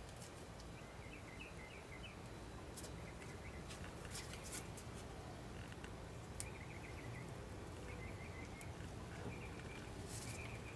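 Faint handling of the outboard's air filter and its rubber hose by gloved hands, giving a few soft clicks, over a low steady rumble. Short high chirps in quick runs of a few notes come and go throughout, like a small bird calling.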